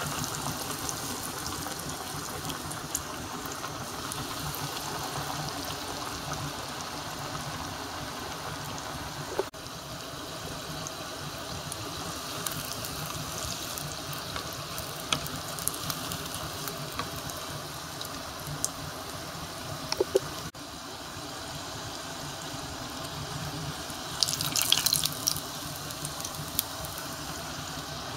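Panko-breaded beef croquettes deep-frying in a small pot of oil: steady sizzling with constant fine crackling of the bubbling oil. There are a few sharp clicks about twenty seconds in and a louder spell of crackling a little later.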